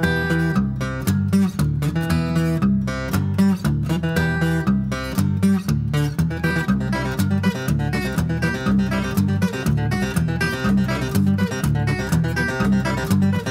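Background music: a fast acoustic guitar instrumental, rapid plucked notes over a repeating bass line.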